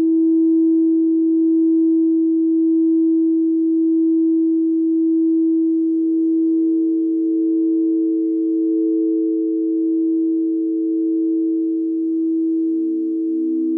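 Singing bowl sounding one sustained, steady tone with a slow, gentle swell in loudness. Near the end a second, lower bowl comes in, pulsing softly under the first.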